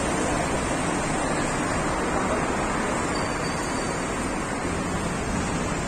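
Steady street noise: a constant roar and hiss with no distinct events, as of traffic on a city road.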